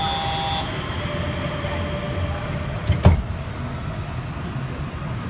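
Steady low hum inside a Yurikamome 7500 series car standing at a station, with the ventilation running. A short electronic chime sounds at the very start, and a single sharp thump comes about three seconds in.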